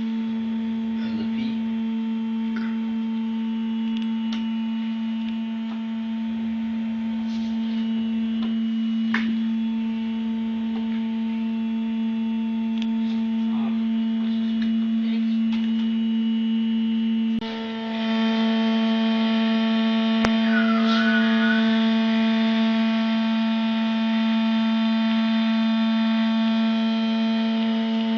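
Hydraulic test rig running, with a steady hum and one strong low tone. About 17 s in it dips for a moment, then comes back a little louder and brighter.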